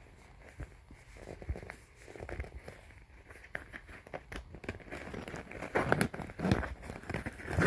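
Cosmetic packaging being handled and crinkled, with small clicks and taps, getting louder and busier about two-thirds of the way in.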